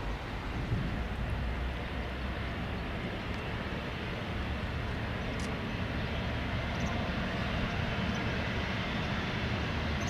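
Engines of an Embraer ERJ-195LR jet airliner, its twin GE CF34-10E turbofans, heard as a steady rumble that slowly grows louder.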